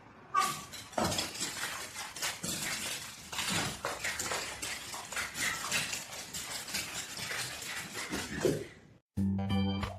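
Irregular clattering and clinking of hard objects for about nine seconds, cutting off abruptly; organ music starts near the end.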